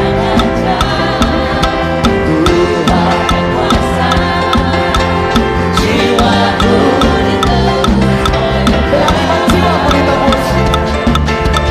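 Live church praise band music: a drum kit keeps a steady, driving beat under sustained chords.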